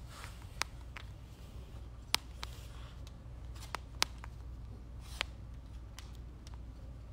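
About ten irregular sharp clicks and light taps, as of fingers handling and tapping a phone, over a steady low hum.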